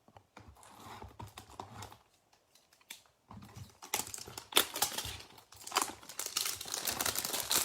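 A cardboard hanger box of trading cards being torn open and the wrapped pack inside pulled out. Light rustling and clicks give way about three seconds in to busier, sharp crinkling and tearing.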